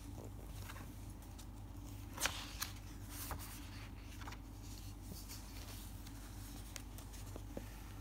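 Pages of a paperback picture book being turned by hand: a few crisp paper rustles and taps about two to three seconds in, over a low steady hum.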